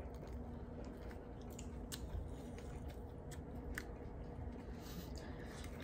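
Faint chewing of a dry egg sandwich, soft mouth sounds with scattered small clicks.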